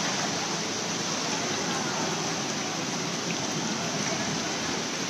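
Steady hiss of heavy rain falling on a flooded street.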